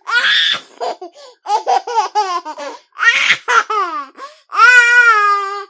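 A baby laughing in bursts of quick giggles and squeals, ending in one long high-pitched squeal.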